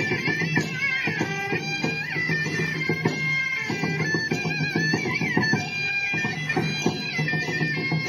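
Northeast Chinese yangge music: a suona (Chinese double-reed horn) playing a bright, bending melody over steady drum and cymbal beats.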